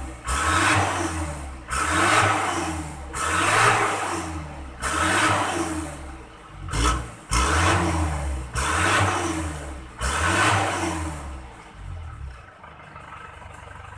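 Isuzu Panther LS non-turbo diesel engine, heard at the tailpipe, being blipped: about eight quick revs in a row, each rising and falling back, before it settles to idle near the end.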